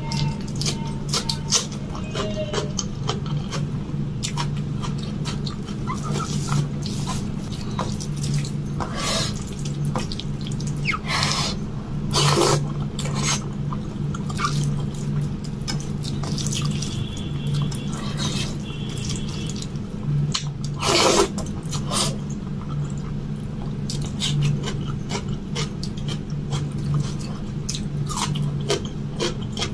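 Close-miked eating: wet chewing and lip smacks, with fingers squishing rice and curry, as many short clicks over a steady low hum.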